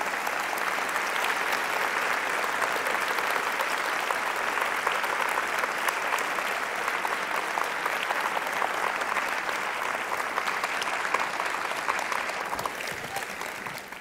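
Large audience applauding steadily, a dense sound of many hands clapping at once.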